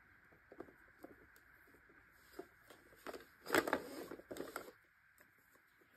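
Tumbler-spinner parts being handled and fitted together: faint scattered clicks, then a louder bout of knocking and rubbing a little past halfway.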